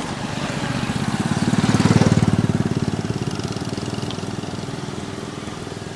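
A motorbike engine passing close by: it grows louder to a peak about two seconds in, then fades away.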